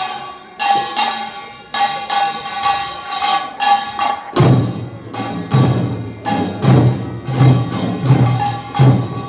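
Korean nongak percussion: a small metal hand gong (kkwaenggwari) struck in a rhythm, each ringing hit fading quickly, with a low drum joining in about four seconds in.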